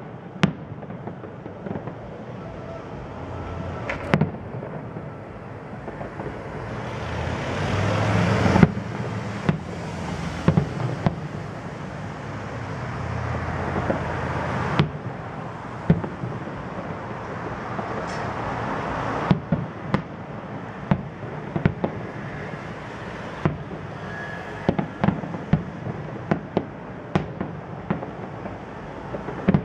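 Aerial fireworks shells bursting: a string of sharp bangs over a continuous rushing noise. The noise swells to the loudest bang about nine seconds in, and the bangs come in quick succession over the last few seconds.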